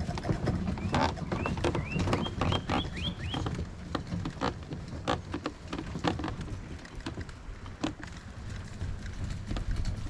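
Water lapping and knocking against a kayak's hull in irregular knocks over a low rumble. A bird calls a quick run of about seven rising notes, starting about a second in.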